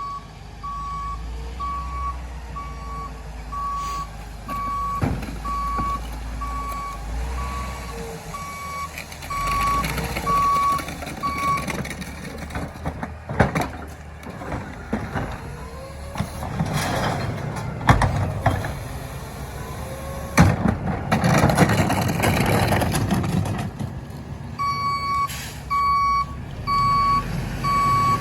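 Garbage truck's backup alarm beeping steadily, about one and a half beeps a second, over the engine's low running. About twelve seconds in the beeping stops and several loud bangs come over a noisy, rattling stretch of the truck working, then the beeping starts again near the end.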